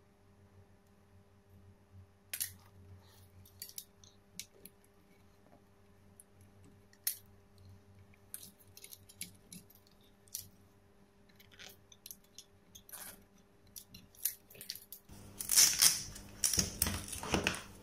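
Small clicks and rustles of thin insulated wire leads being twisted and fitted by hand, over a low steady hum. Near the end a louder rustling scrape lasts about two seconds.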